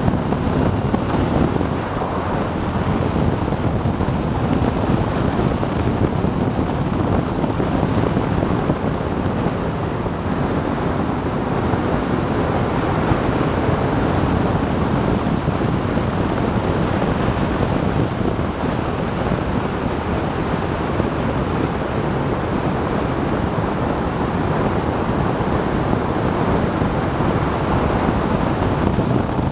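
Steady wind rush over the microphone of a BMW R 1200 GS Adventure motorcycle cruising at about 80 km/h, with the bike's running and road noise mixed in beneath it.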